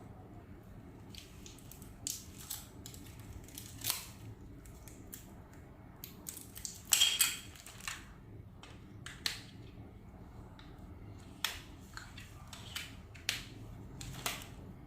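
Intermittent clicks, taps and scrapes of things being handled, with a louder rustling scrape about seven seconds in.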